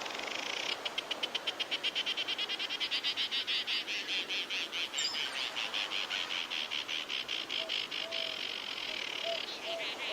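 A high-pitched, rapidly pulsing animal chorus, about seven pulses a second, with a few short lower chirps in its last seconds.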